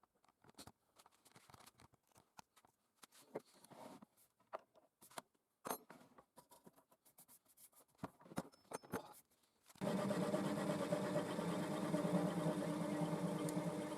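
Scattered light clicks and taps, then, about ten seconds in, the homemade belt grinder's electric motor switches on abruptly and runs with a steady hum.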